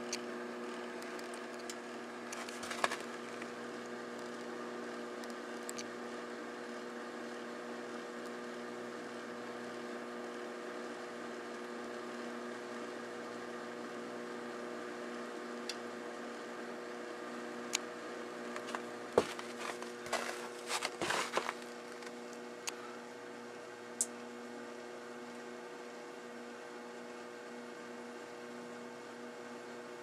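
Microwave oven running with a steady hum, while a stick of computer memory on the turntable gives off a few sharp clicks and a cluster of crackling pops a little past the middle: the metal on the module arcing in the oven.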